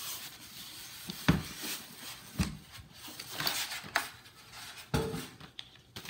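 Plastic bag rustling and a styrofoam packing insert rubbing as a boxed electric rice cooker is pulled free and set down on a table, with a few short knocks in between.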